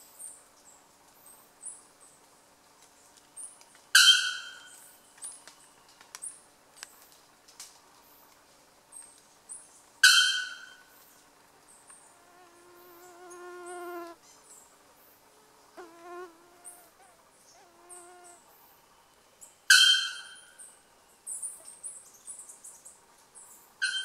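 Young male bare-throated bellbird calling: loud, abrupt single notes, three of them six to ten seconds apart and another at the very end, over faint high chirps.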